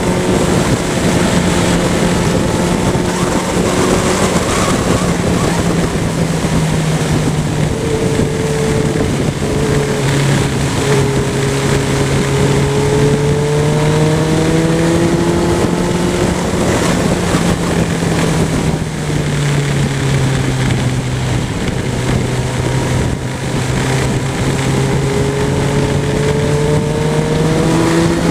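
Motorcycle engine running under way, its note rising slowly several times as it accelerates and dropping back between, over steady wind rush.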